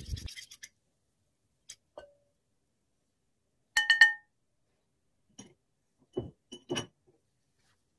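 A few sparse clinks of a metal fork and ceramic mixing bowls while flour is tipped into a bowl and stirred. The loudest is a double clink about four seconds in that rings briefly; a few soft knocks follow near the end.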